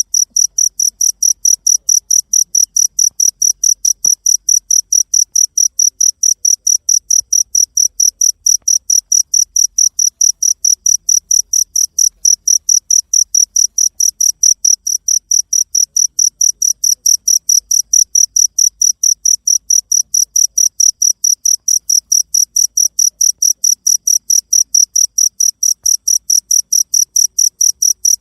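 Cricket chirping: a high-pitched chirp repeated in a fast, perfectly even rhythm, several times a second.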